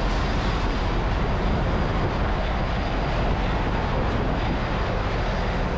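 Ship's engine-room machinery running: a loud, steady drone of diesel engines, pumps and ventilation blended together, with a faint high whine over it.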